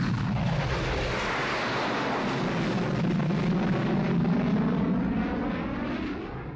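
Small jet aircraft's engine rushing steadily as it flies past, with a sweeping, phasing sound that dips in level near the end.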